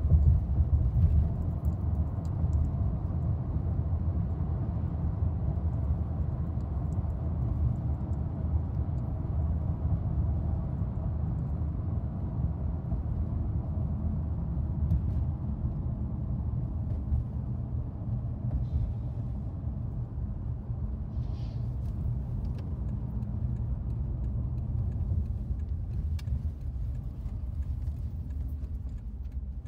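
Steady low rumble of a car on the road, heard from inside the cabin: tyre and engine noise while driving.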